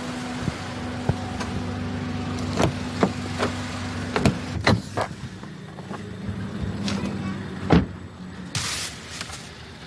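A steady low hum that fades out about halfway, under a run of separate clicks and knocks; the loudest knock comes about three quarters of the way through.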